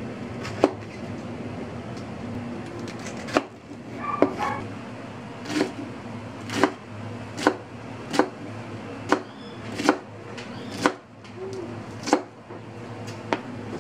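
Kitchen knife slicing through a head of cabbage onto a wooden cutting board: a dozen crisp chops, one near the start and then about one a second, over a steady low hum.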